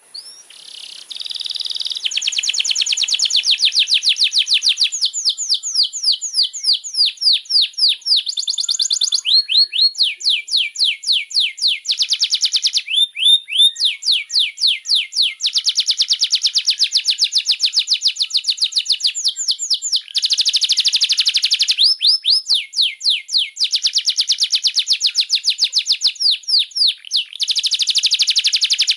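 Domestic canary singing continuously in long rolling trills of rapid repeated notes, switching between fast even rolls and slower runs of swooping notes, with only brief pauses between phrases.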